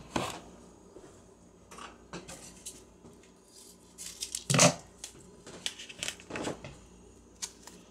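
Scattered close handling noises on a kitchen counter: short crisp rustles and clicks as the yeast is opened and got ready to add to the flour, the loudest about four and a half seconds in.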